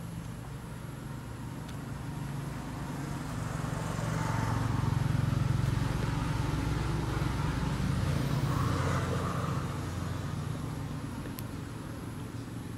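Low engine hum of a motor vehicle that grows louder over a few seconds, holds, then fades again.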